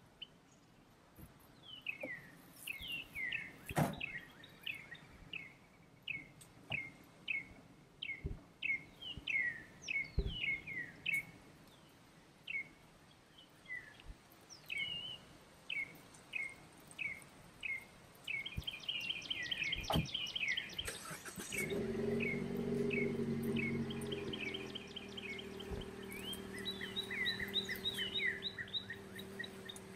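Birds calling with a long run of short, falling chirps, broken by a few sharp knocks as the Jeep Wrangler's tailgate and door are shut. About two-thirds of the way through, the Jeep's engine starts and runs steadily.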